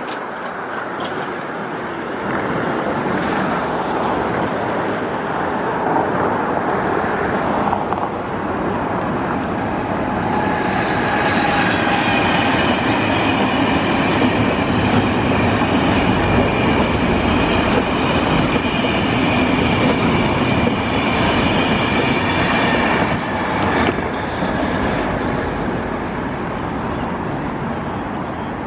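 KTT double-deck passenger train, hauled by Lok2000 electric locomotives, passing: a steady rumble and clatter of wheels on rail that grows louder. High ringing tones join about ten seconds in and drop away around twenty-four seconds, and the noise eases near the end.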